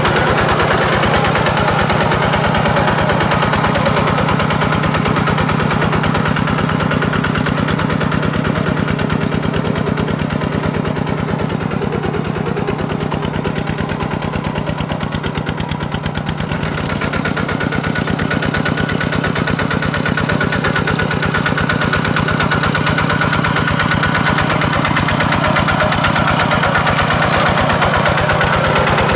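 Kubota RT140 two-wheel walking tractor's single-cylinder diesel engine running steadily under load with a fast, even chugging beat as it pulls a disc plough through flooded mud. It dips a little in loudness around the middle.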